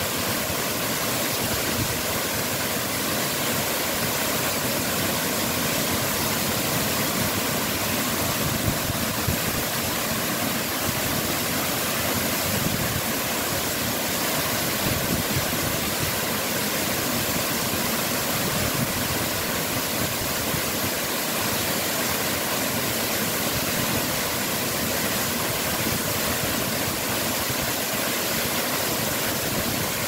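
Waterfall pouring onto rock and into its plunge pool: a steady, unbroken rush of falling water.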